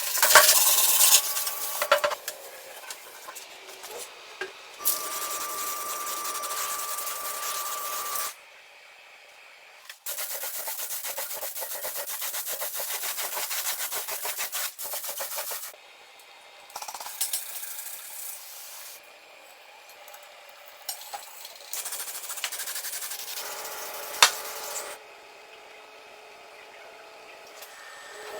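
Abrasive rubbing and sanding on metal parts, heard as several separate steady scraping stretches that start and stop abruptly. A steady high tone runs under one stretch about five to eight seconds in.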